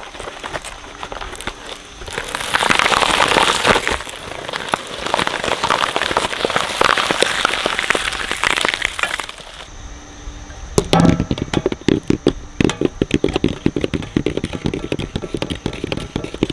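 A shredder crushing and tearing something up with dense, continuous crackling and cracking. About ten seconds in the sound changes abruptly to heavier, lower crunches and knocks as a different piece goes through.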